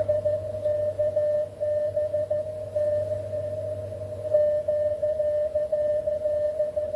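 Morse code (CW) sidetone from an Icom IC-7300 transceiver sending on 20 metres: a steady pitched beep keyed with short breaks, over a low hum.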